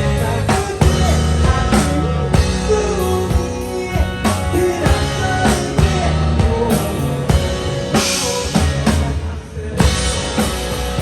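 Rock band playing live on stage, with a full drum kit keeping a steady beat under the other instruments.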